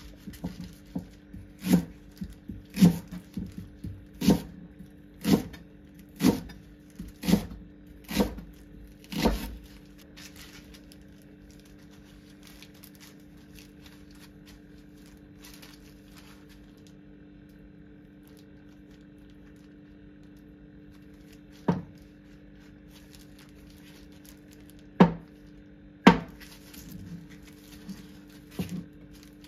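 Kitchen knife chopping a Japanese leek on a cutting board, sharp knocks about once a second for the first ten seconds. After a quiet stretch, a few scattered knocks of the blade meeting the board while a block of firm tofu is sliced. A steady low hum runs underneath.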